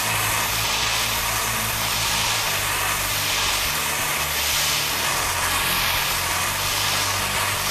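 Gas soldering torch burning with a steady rushing hiss as its flame plays over a large copper pipe fitting, heating the joint before solder is applied.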